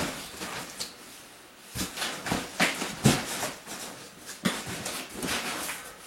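Cardboard moving boxes being handled: a series of irregular knocks, thumps and short scraping rustles as they are lifted and set down.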